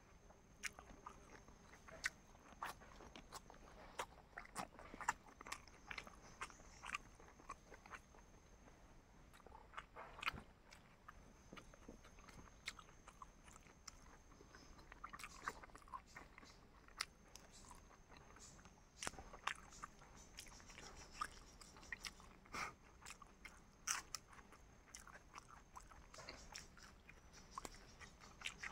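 A person chewing and biting food close to the microphone, with irregular crunching clicks, several a second at times.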